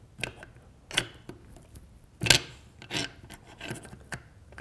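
The bolt and small metal parts of an M5 pump shotgun being worked out of the receiver by hand: a series of light metallic clicks and short scrapes, the loudest about halfway through.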